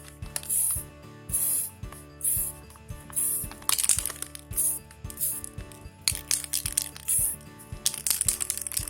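Background music with a steady pulse, over a repeated hiss-like scratching stroke about once a second and a few quick clusters of small clicks.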